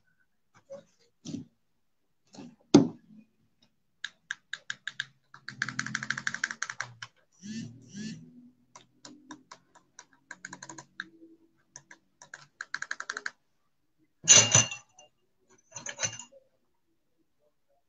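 Typing on a computer keyboard: irregular runs of quick key clicks, with one louder knock about fourteen seconds in.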